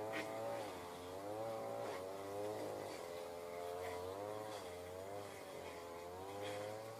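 A small engine running steadily, its pitch wavering gently up and down.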